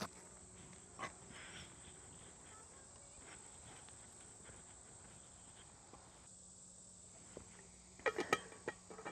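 Faint summer outdoor ambience: a steady high-pitched insect drone over low background noise, with a couple of light clicks early and a short burst of knocks and rustling about eight seconds in.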